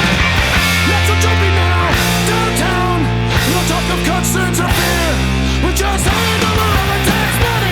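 Background rock music with distorted electric guitar and heavy bass notes.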